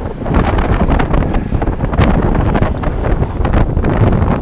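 Scania R500 V8 truck driving, its engine noise mostly low and heavily buffeted by wind on the microphone, with irregular crackles of wind throughout.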